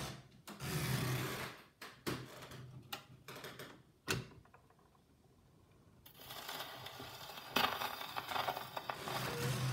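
Clicks and crackle of an old 78 rpm record's run-in groove, then surface hiss growing louder. The first notes of the music come in near the end.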